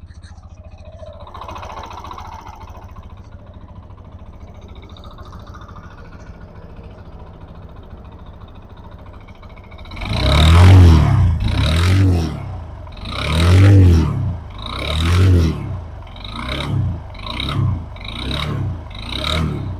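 TVS Apache RTR 160 BS6 2V's single-cylinder engine idling steadily, then revved in about eight quick throttle blips that come faster toward the end. It is making an abnormal engine noise that the mechanic suspects comes from a worn starter one-way clutch with excessive play rather than the timing chain.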